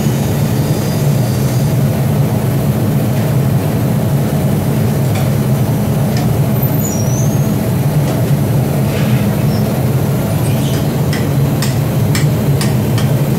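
Steady low roar of a glassworks floor, from its furnaces and machinery. Several sharp clicks come in the last few seconds.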